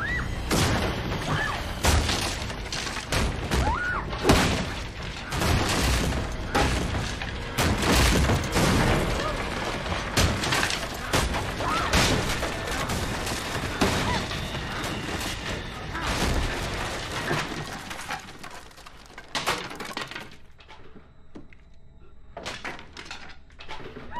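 Film sound effects of a violent struggle and fall: a dense run of crashes, heavy thuds, wood breaking and glass shattering, with a few short cries among them. It dies down to quieter, scattered knocks after about eighteen seconds.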